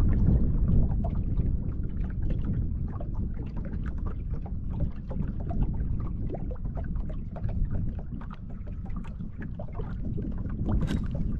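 Small waves lapping and slapping against the hull of a Sea-Doo FishPro watercraft in a steady run of irregular little splashes, over a low wind rumble on the microphone. A sharper click sounds near the end.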